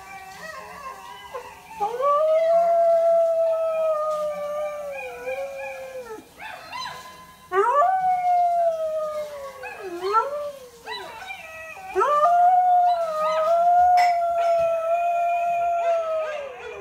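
Samoyed howling: three long, wavering howls, each rising in pitch at the start and sliding down at the end, with a few short yelps between the second and third.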